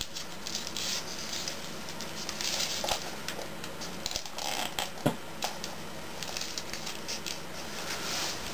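Origami paper rustling and crackling under the fingers as it is folded and creases are pressed flat, with many small irregular clicks.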